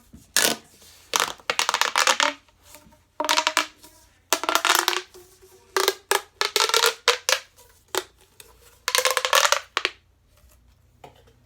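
Plastic pop tube fidget being stretched and squashed. It makes about six bursts of rapid crackling clicks, some with a faint changing note.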